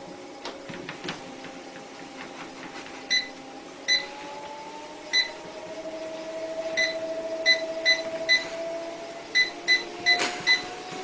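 Treadmill motor whining steadily, its pitch stepping up as the belt speeds up, while the console beeps a dozen times in short single beeps. A few light knocks sound about half a second to a second in.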